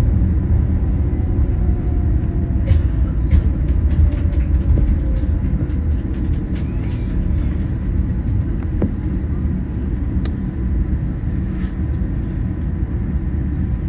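Cabin rumble of a Boeing 787-9 rolling out on the runway just after landing, heard from inside the cabin: a steady low rumble that slowly eases off as the jet slows. A faint falling engine whine runs through the first few seconds, and light cabin rattles come and go.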